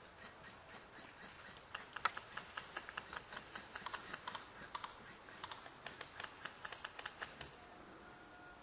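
Airsoft guns firing: a rapid, irregular string of sharp clicks, several a second, the first one the loudest, stopping a little before the end.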